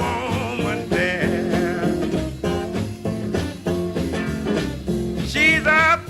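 Blues-style song with guitar and a singing voice: background music with a steady beat.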